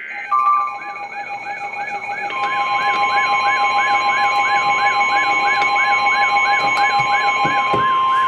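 Emergency alert tones: a steady alarm tone, joined about two seconds in by a second, higher steady tone, over a warbling siren-like alert that repeats about three times a second. The lower steady tone stops shortly before the end.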